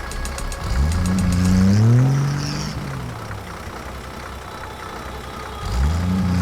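A small engine revving up and easing back down, about a second in and again near the end; the two rises are nearly identical, over a steady low hum.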